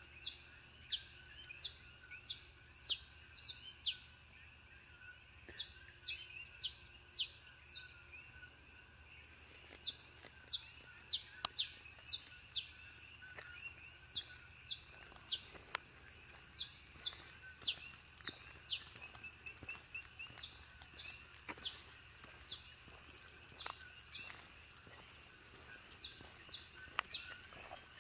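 Morning birdsong: birds chirping over and over in short, high, downward-sliding notes, roughly two a second and overlapping, over a steady high background drone.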